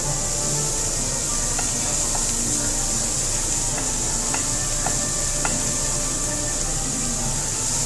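Beef sizzling on a tabletop grill pan, a steady hiss, with scattered light clicks of metal tongs turning the pieces.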